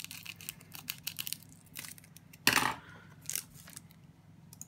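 Clear plastic wrapping of a trading-card promo pack crinkling and crackling as it is handled and opened, with one louder crunch about two and a half seconds in.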